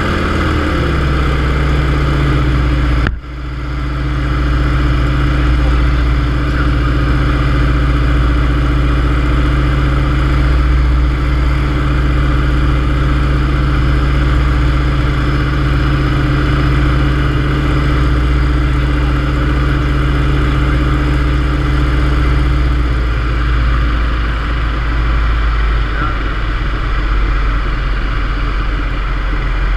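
Yak-52's nine-cylinder M-14P radial engine and propeller droning steadily, heard from inside the cockpit in flight, with wind noise over the canopy. The engine note drops about a second in and again about 24 seconds in. The sound breaks off briefly about three seconds in.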